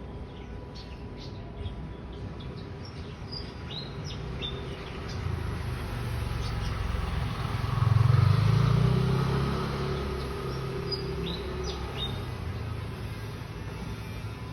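Small birds chirping in short high calls, while a motor vehicle passes: a low engine rumble swells to the loudest point midway and then fades away, after which the chirps return.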